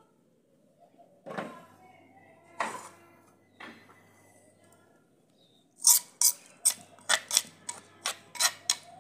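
A steel spoon scraping and knocking against the inside of a terracotta pot, a quick run of about a dozen sharp strokes starting about six seconds in, as freshly ground mint chutney is scooped out. Two short pitched sounds come earlier.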